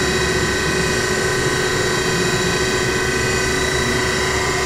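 Brown & Sharpe 618 Micromaster hydraulic surface grinder running, its hydraulic pump, freshly fitted with new bearings, and motors giving a steady hum with a high whine as the table traverses slowly under hydraulic feed.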